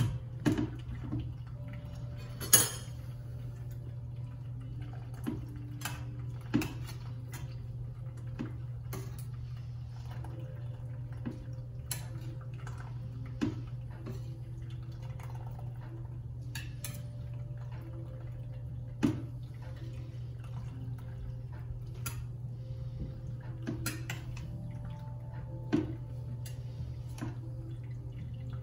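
Metal pots, a strainer and a spatula clinking and scraping at irregular intervals as mashed grain is poured and pushed through a strainer during sparging, with wort dripping through, over a steady low hum. The sharpest clanks come about two and a half seconds in and again near the middle.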